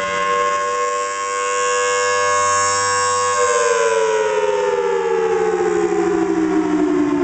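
Federal Signal Thunderbolt 1003 outdoor warning siren sounding its wailing attack signal: a loud siren tone that holds a steady pitch for about three seconds, then slides steadily down in pitch.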